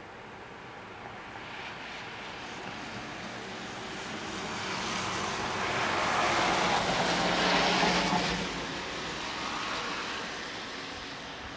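A vehicle passing by: a rushing noise with a low engine hum that builds to its loudest about seven to eight seconds in, then fades away.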